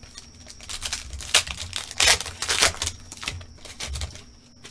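Foil wrapper of a 2020 Chronicles Draft football card pack being torn open and crinkled, in a run of short crackly bursts over about two seconds, loudest around the middle.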